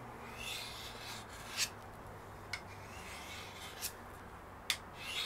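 Steel knife blade being drawn along a sharpening rod to bring up its dull edge: soft rasping strokes, with four sharp ticks spread through them.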